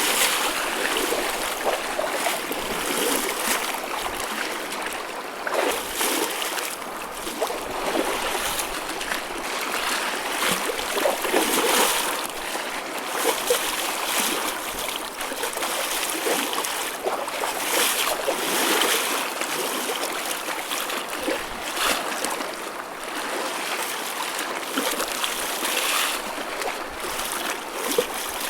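Choppy ocean waves: a continuous wash of water with frequent small splashes and surges, without deep booming breakers.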